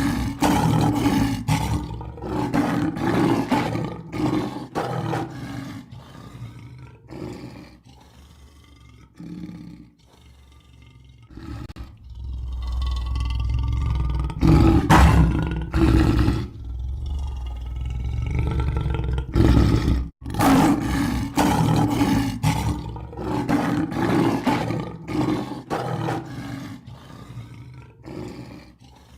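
Lion roaring: a run of short, loud roars, then a long, deep rumbling stretch in the middle, then more short roars that fade toward the end.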